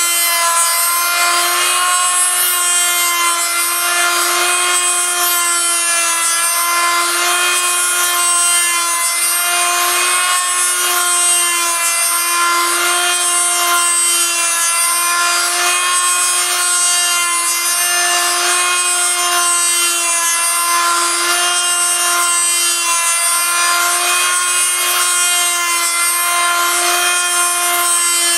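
Handheld rotary tool on a homemade copy milling machine, running at a steady high whine while its bit cuts a turning wooden lure blank, with an even, rasping cutting noise throughout.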